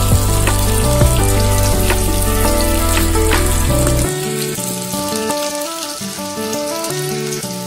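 Instrumental background music with a bass line that drops out about four seconds in, over a steady sizzle of shallots frying in a pot, with a few light clicks of the wooden spoon.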